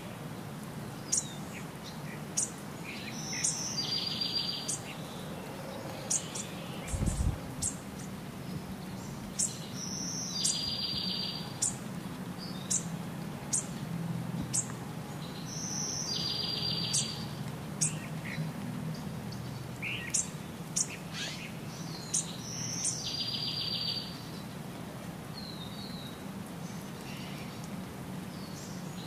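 Birds chirping in short, high calls, with a buzzy trill that repeats about every six and a half seconds, over a steady low hum. A brief low thump comes about seven seconds in.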